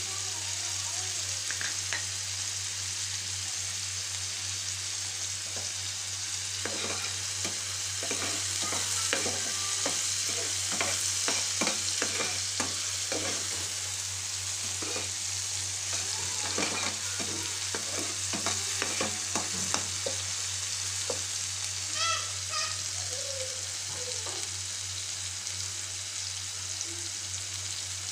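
Chopped onion, tomato and green chillies sizzling steadily in hot mustard oil in a metal pan. Through the middle stretch a metal spoon stirs and scrapes against the pan with many short knocks.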